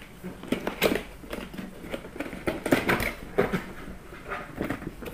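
Lid of a two-part cardboard box being worked loose and lifted off its base: irregular scraping, rustling and small knocks of cardboard.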